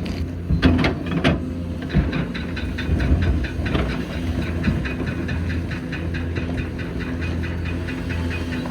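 Hitachi Zaxis 490LCH excavator's diesel engine running steadily under load, with a few sharp knocks in the first two seconds and then a fast, even ticking of about five a second.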